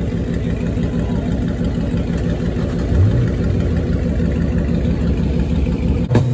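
A car engine idling loudly with a rapid low pulsing beat, blipped briefly about three seconds in, with a single sharp crack near the end.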